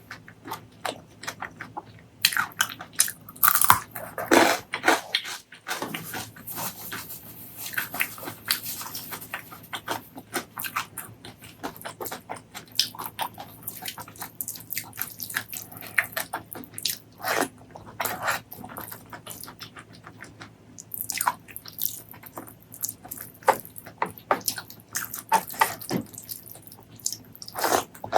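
Close-miked eating sounds: a person chewing and biting with wet, irregular mouth clicks and smacks.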